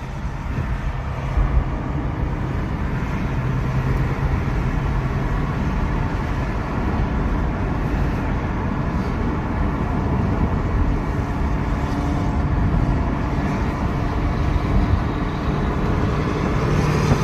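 Steady engine drone and tyre road noise from a car cruising in traffic, heard from inside the cabin, with no revving.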